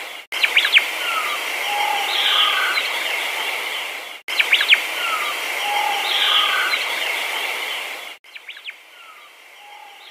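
Birdsong ambience: a few short bird chirps and calls over a steady high hiss. The same four-second stretch repeats with a brief break between repeats, as a looped recording does, and turns quieter about eight seconds in.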